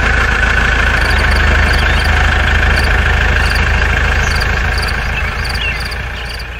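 Tractor engine running steadily, fading out near the end.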